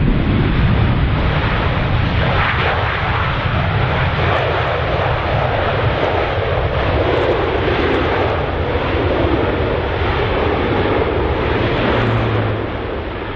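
Airbus A330 twin-engine jet landing, its engines making a loud, steady rushing noise that fades slightly just before the end.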